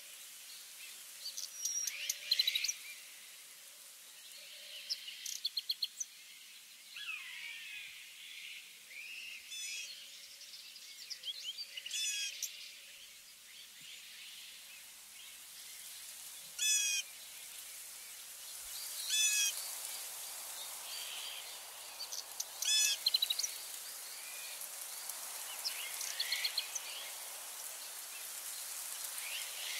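Several woodland birds singing and calling, short chirps and quick trills coming every few seconds, over a faint steady high hiss.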